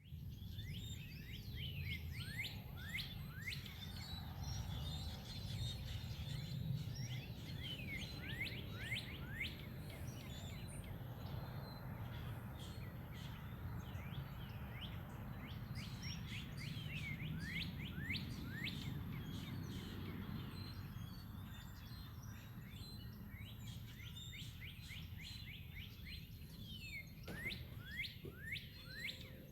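A flock of grackles calling together: many overlapping short chirps sweeping downward in pitch, in waves that swell and thin out, over a steady low rumble.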